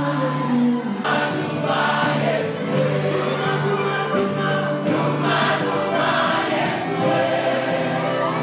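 Live gospel music: a choir singing over steady instrumental backing.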